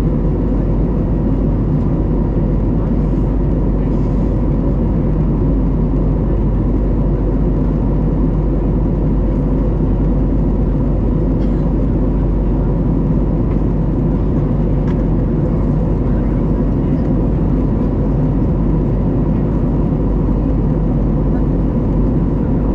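Steady cabin noise of an Airbus A321neo in its climb: the drone of its Pratt & Whitney PW1100G geared turbofan engines and the rush of air, with a few constant humming tones over it.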